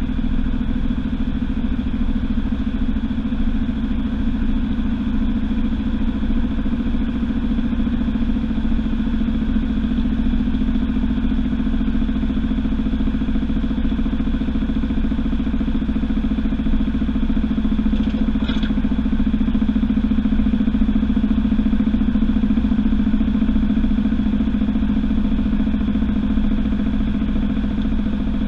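Washing machine drum spinning at speed, heard from inside the drum: a steady mechanical hum that grows a little louder about two-thirds of the way through, with one brief rattle.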